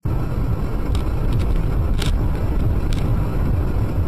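A car driving: a steady low rumble of road and engine noise, with a few short sharp clicks or knocks, the strongest about two seconds in.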